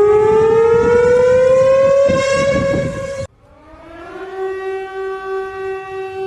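Civil defense siren rising slowly in pitch, holding, and cutting off suddenly a little after three seconds in. It then winds up again to a steady, somewhat lower tone.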